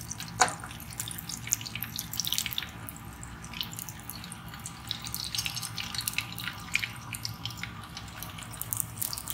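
Horumon (offal) frying in a deep pool of rendered fat in a small pan, sizzling with dense, irregular crackles of spattering oil. One sharp crack stands out about half a second in.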